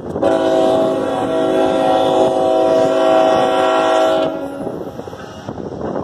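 Norfolk Southern GE ET44AC diesel locomotive's air horn sounding one long, loud blast of several steady tones, which cuts off after about four seconds. After that comes the rumble of the approaching train with wind noise on the microphone.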